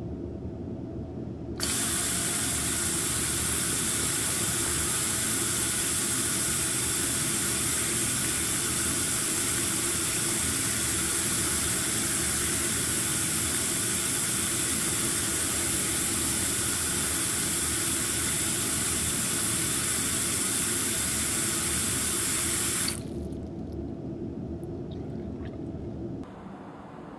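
Water running steadily from a tap into a sink or basin, starting abruptly about two seconds in and shut off abruptly after about twenty seconds. A quieter low hum carries on for a few seconds after the water stops.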